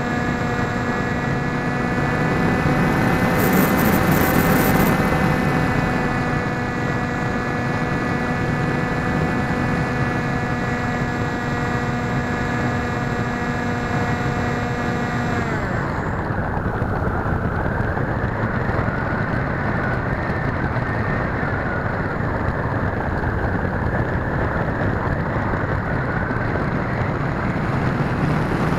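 Small electric motor and propeller of an RC plane on a 2S battery, heard from the onboard camera, whining at a steady pitch. About halfway through the pitch drops and the motor cuts out, leaving only steady wind noise from the airflow as the plane glides.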